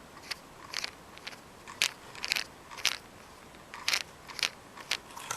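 Irregular small clicks and crunchy scrapes, a dozen or so, from a small screwdriver and the plastic parts of a compact digital camera being worked apart by hand.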